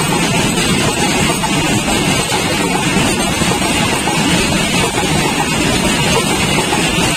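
A rake of railway tank wagons rolling past on the next track without stopping: a loud, steady rumble of steel wheels on rails.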